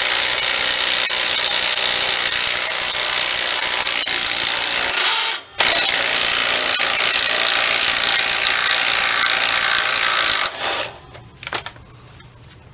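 Cordless impact wrench hammering as it spins the nuts off the rear axle's U-bolts. It runs in two long stretches of about five seconds each, with a brief stop about five seconds in. It dies away about ten and a half seconds in, and a couple of short blips follow.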